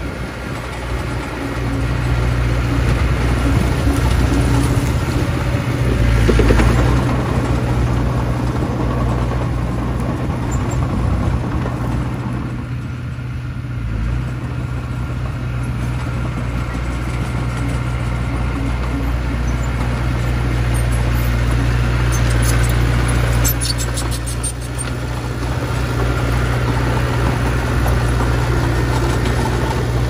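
Komatsu D20P small crawler bulldozer's diesel engine running steadily as the machine pushes soil with its blade. A short spell of rapid clicking comes a little over twenty seconds in.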